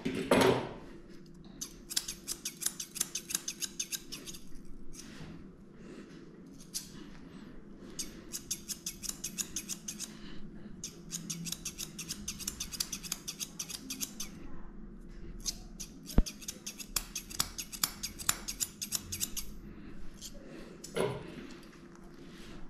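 Grooming scissors snipping rapidly through a dog's coat as its head is trimmed, in runs of several seconds with short pauses between. A brief louder noise comes at the very start and another near the end.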